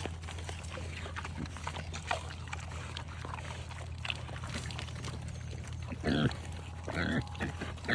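Pigs eating eggs: many small crunches and chewing smacks as shells are broken, with a couple of short grunts about six and seven seconds in. A steady low hum runs underneath.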